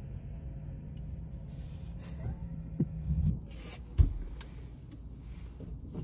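Low steady rumble inside a parked car's cabin, with a few small clicks and knocks from handling, and one sharp thump about four seconds in.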